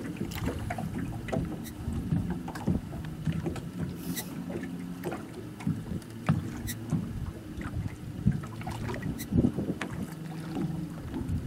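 Small fishing boat's machinery humming steadily at a low pitch, with many scattered small knocks and clicks of gear on deck.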